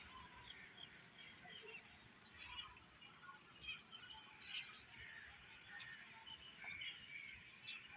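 Faint bird chirps: many short calls scattered throughout, one louder call a little past five seconds in, over a quiet outdoor background hiss.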